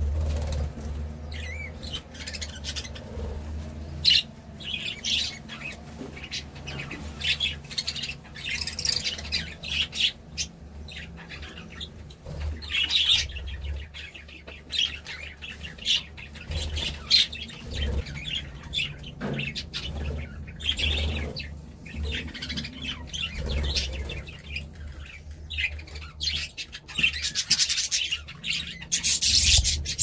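A flock of budgerigars chirping and warbling together in a steady, busy chatter of short, quick calls with frequent sharp clicks.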